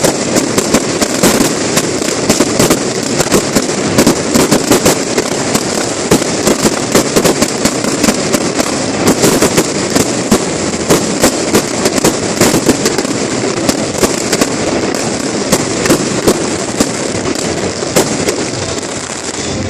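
Aerial fireworks display: a dense, continuous barrage of bangs and crackles from many shells bursting in quick succession, over a steady rumble.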